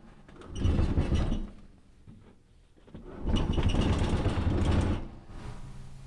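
Empty gas water heater tank being turned around on its base: two bursts of scraping and rumbling, the first about a second long near the start and the second about two seconds long past the middle.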